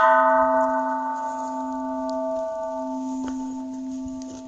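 A bell struck once, then ringing on with several clear tones that fade slowly, the higher ones dying away first and the deepest lasting longest.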